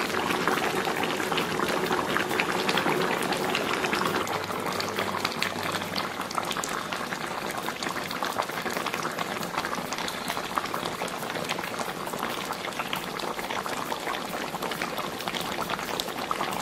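Red-braised pork belly in a wok of thick soy-based braising sauce, bubbling steadily with a dense patter of small pops.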